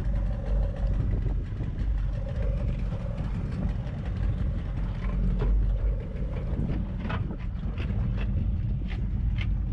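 Steady low rumble aboard a small fibreglass boat at sea, with a few light knocks in the second half as a giant trevally is handled.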